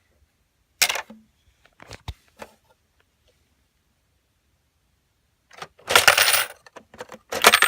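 Coins dropping and clattering through a LEGO-brick coin vending mechanism: a few single sharp clinks early, then a longer rattling clatter about six seconds in and another near the end.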